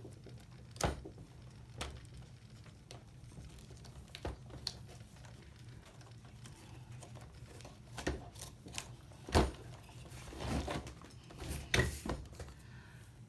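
Irregular clicks, taps and light knocks from parts of an old 1984 video camera being handled and pried apart with tools, with a brief rustle about ten seconds in, over a low steady hum.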